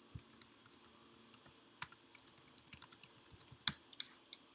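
Computer keyboard typing: scattered key clicks. Underneath runs a steady, very high-pitched screeching tone that pulses several times a second, a background noise on the recording.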